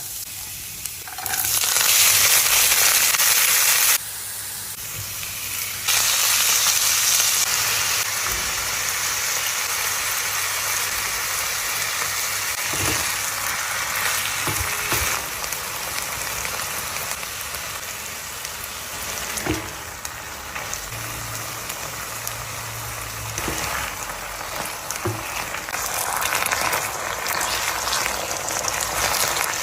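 Chicken frying in hot oil, a dense steady sizzle whose loudness jumps up and down abruptly a few times, with a few light knocks.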